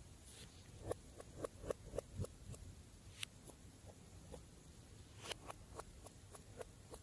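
Slime being kneaded and squeezed by hand: faint, irregular sticky clicks and small pops.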